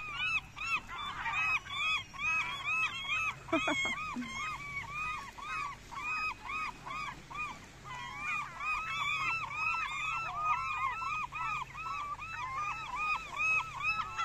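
A flock of gulls calling nonstop: short arched cries, several a second and overlapping, as the birds crowd around fish scraps. A brief knock comes about three and a half seconds in.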